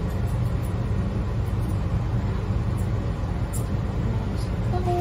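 A steady low machine hum, with a few faint snips of grooming scissors trimming the dog's face.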